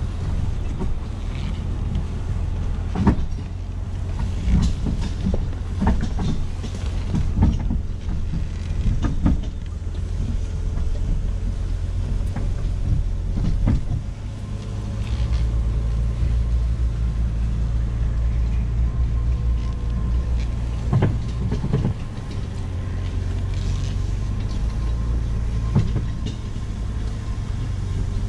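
Jeep Cherokee engine running steadily under load from inside the cab while towing a log arch carrying a heavy oak log over rough woodland ground. Many short knocks and clunks come from the vehicle and the towed rig jolting over the bumpy trail.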